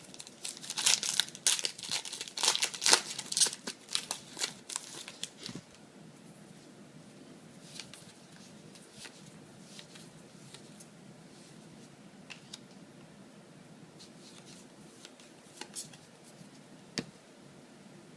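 Foil Yu-Gi-Oh booster pack being torn open and crinkled for about five seconds, then a few soft clicks of cards being handled.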